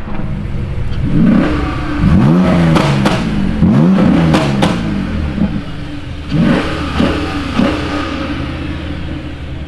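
BMW M4 F82 with a custom exhaust, its twin-turbo straight-six revving hard in a series of quick rising sweeps, with a few sharp cracks among them. Shorter rising blips follow in the second half.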